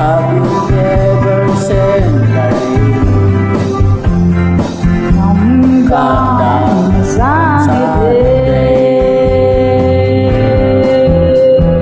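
Singing with instrumental accompaniment. The voice glides around about halfway through, then holds one long note to the end.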